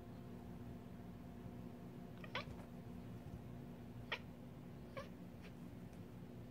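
Orange tabby cat making four short, sharp bark-like chirps at a squirrel it is watching, the first about two seconds in and the last one faint, over a faint steady hum.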